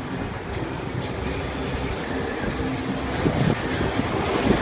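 Steady low mechanical rumble of a carnival ride in motion, with a couple of bumps near the end.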